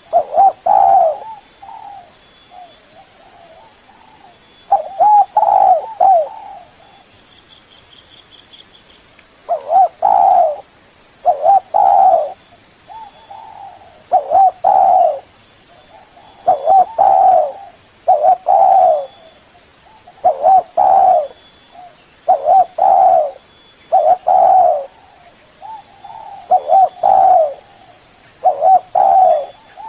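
Spotted dove (Spilopelia chinensis) cooing repeatedly. It gives about a dozen phrases of two or three low coos each, one every couple of seconds.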